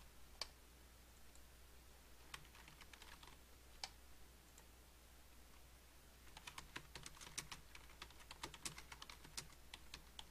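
Faint computer keyboard typing: a few single clicks and a short run of keystrokes, then a long, faster run of keystrokes in the second half, over a low steady hum.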